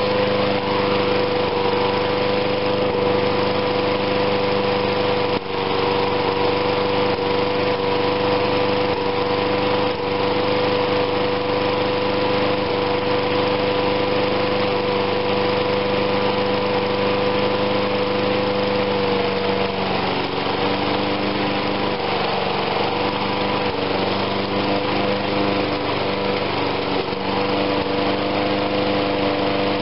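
Toro push mower's Tecumseh single-cylinder engine running steadily at an even speed, its note wavering briefly about twenty seconds in.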